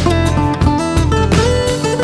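Background music with acoustic guitar strumming and plucked notes over a steady bass.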